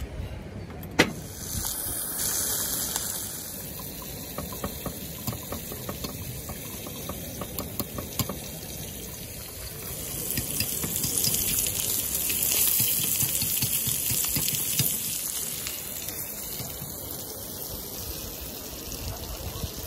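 Zucchini slices sizzling in a titanium pan over an alcohol burner: a steady hiss with light crackles that grows louder about halfway through. A single sharp click about a second in.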